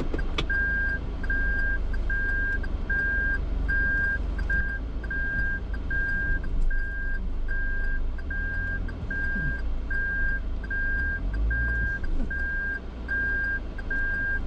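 Daihatsu Atrai kei van driving, heard from inside the cabin as a steady low road and engine rumble. Over it a high electronic beep repeats evenly, about once every three-quarters of a second.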